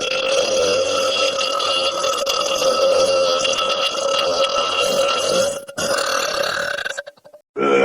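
A long, drawn-out burp held at a steady pitch for about five and a half seconds. A second, shorter burp follows, and another starts right at the end.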